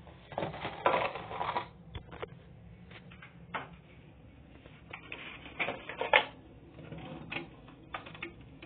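Small hard objects being handled and set down: irregular clicks, knocks and rustling, loudest about a second in and again around six seconds.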